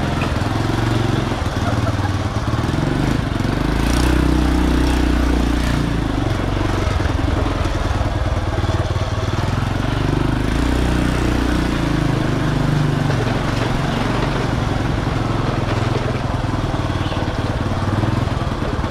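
Motor scooter engine running as it rides along, steady, pulling a little harder for a couple of seconds about four seconds in and again about ten seconds in, over a steady rush of wind and road noise.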